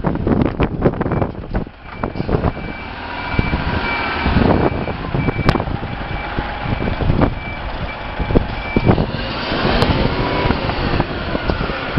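A truck's reversing alarm beeps steadily on one high pitch over a running truck engine, with wind gusting on the microphone early on. The beeping stops about nine seconds in, and the engine note then rises and falls.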